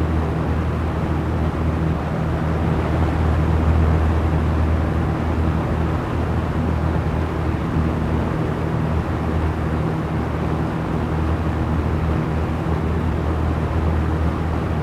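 Small electric fan running steadily: a low motor hum under an even rush of moving air.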